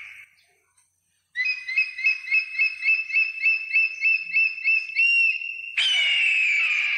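Bald eagle calling: a rapid series of about fifteen high, thin piping notes starting about a second in, ending on a slightly longer held note. Then a long, harsh, descending scream near the end.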